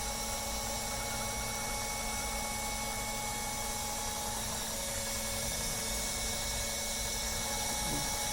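Steady hum and thin whine of a selective soldering machine's servo-driven Z axis raising the miniwave solder pot. The whine's pitch shifts about halfway through.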